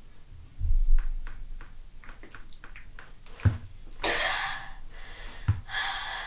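Wet squishing and rubbing as a lump of jelly is smeared over the face by hand, with a dull thump about a second in and two short rushing noises in the second half.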